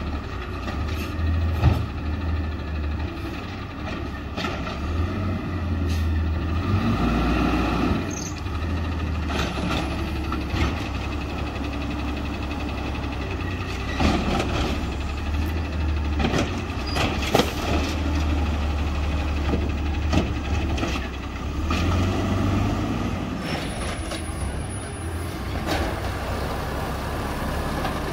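LNG-fuelled Peterbilt 320 garbage truck's engine running, its level swelling and easing several times, with scattered knocks and clanks.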